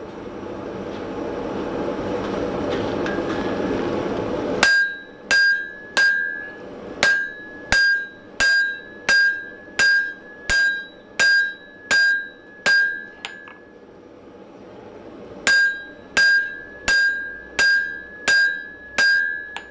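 Hand hammer blows on red-hot steel lying over the horn of a French anvil: about a dozen steady strikes roughly two every three seconds, each with a clear ringing ping from the anvil, then a short pause and several more. Before the hammering, a rushing noise builds up for about four seconds.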